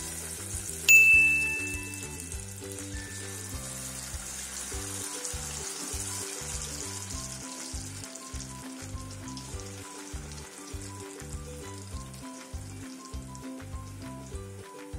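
Battered raw-jackfruit kababs deep-frying in hot oil, a steady sizzle. About a second in, a sharp metal clink rings for about a second and a half.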